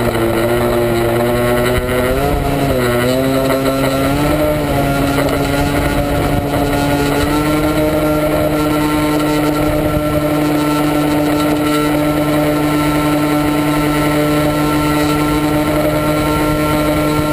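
Motor of a radio-controlled model airplane running in flight, heard from a camera carried on the plane. Its pitch wavers up and down for the first few seconds, then holds steady.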